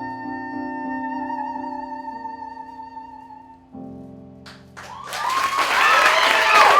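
A woman's voice holds the final high note of a musical-theatre song with vibrato over piano accompaniment. A last piano chord follows. About five seconds in, audience applause and cheering break out.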